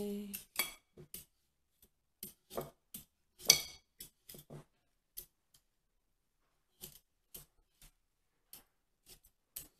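Speed peeler scraping strips of skin off a cucumber in short, separate strokes, with a pause of about a second and a half in the middle.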